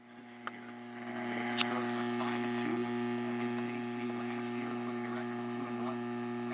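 Steady electrical mains hum from a radio receiver, a low buzz made of a few steady tones. It fades in over the first second, with faint muffled wavering sounds beneath it and a single click about a second and a half in.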